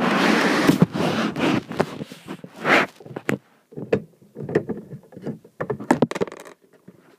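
Plastic Lego pieces being handled close to the microphone: a loud scraping rustle for the first few seconds, then a series of light plastic clicks and knocks as parts are fitted.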